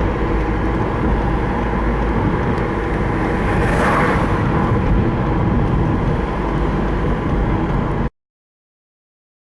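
VW Golf Mk5 1.9 TDI diesel engine running steadily with a strong low rumble, on a car whose alternator is failing. The sound cuts off abruptly about eight seconds in.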